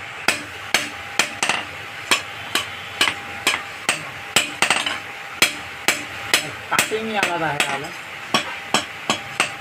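Hand hammer striking a red-hot iron cleaver blade on a small anvil, hot-forging the blade. The blows are sharp and come at a steady pace of about two a second.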